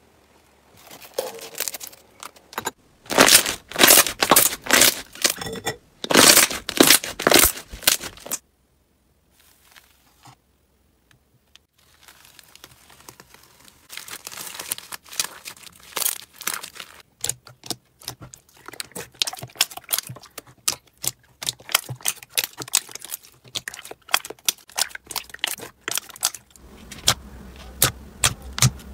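Hands working slime at close range. First come loud squelching, crackling bursts as slime is pressed against a wire grill. After a short pause there is a long run of dense crinkling and crackling as paper strips are scrunched into slime, and near the end rapid small pops as fingers press into a tub of soft slime.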